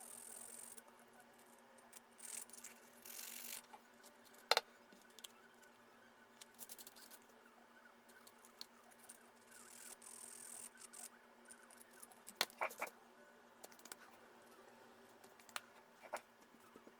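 Quiet hand work on a small piece of azalea wood: scattered light clicks and taps with a few short scraping hisses, and one sharper click about four and a half seconds in. A faint steady hum runs underneath.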